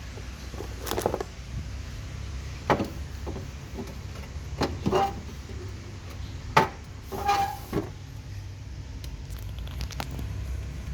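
Scattered knocks, clicks and short rattles of a refrigerator's doors or plastic parts being handled, over a steady low hum.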